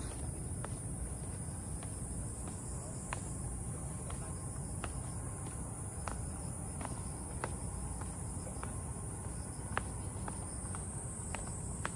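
Insects giving a steady high-pitched drone that fades somewhat in the middle and swells again near the end, over footsteps on a trail ticking roughly once a second and a low steady rumble.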